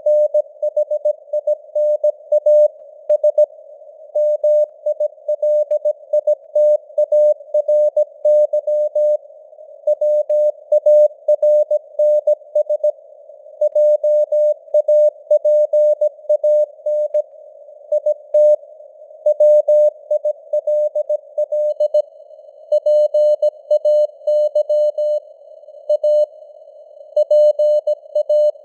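Morse code sent at 17 words per minute: a single steady tone keyed on and off in dots and dashes, grouped into letters and words with short pauses between. It sits in a narrow band of simulated radio hiss that fills the gaps, like a CW signal heard on a receiver.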